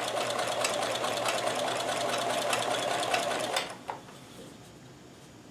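Kenmore 158.1914 sewing machine with a walking foot stitching steadily through a thick stack of cotton layers, then stopping about three and a half seconds in with a click.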